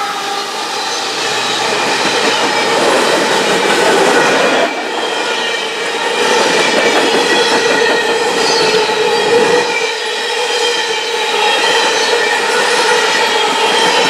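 Coal train's gondola cars rolling past steadily: wheels rumbling and clattering on the rails, with a sustained high metallic squeal from the wheels.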